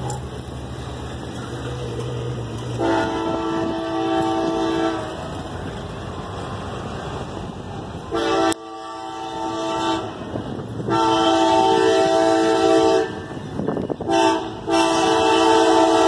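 Approaching diesel freight locomotive sounding its Nathan K5LLA five-chime air horn in a series of blasts, long and short, each a steady chord, getting louder near the end. A low engine rumble runs underneath before the first blast.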